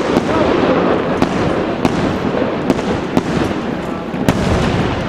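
Aerial firework shells bursting: about six sharp bangs, roughly one a second, over a continuous crackle and rumble from the display.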